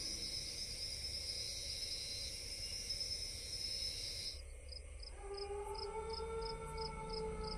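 Insects droning steadily on one high note, switching a little past four seconds in to evenly spaced chirps about three a second. About five seconds in, a held low eerie tone comes in underneath.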